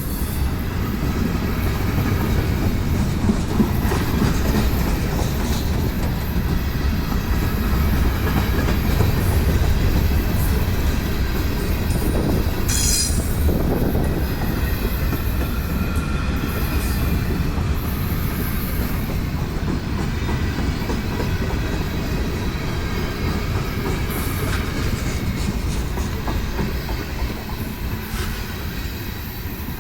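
Train rolling past, a steady heavy low rumble with the clickety-clack of wheels over the rail joints. A brief high wheel squeal about 13 seconds in.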